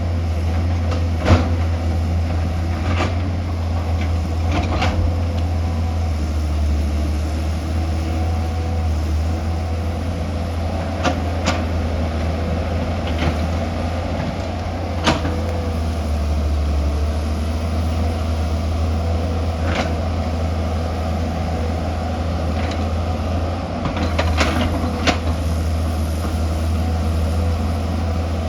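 Excavator's diesel engine running steadily at a deep, even hum, with scattered sharp knocks and clanks every few seconds as it works.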